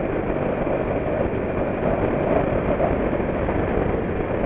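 Motorcycle engine running steadily while riding at road speed, mixed with wind rushing over the rider-mounted camera microphone.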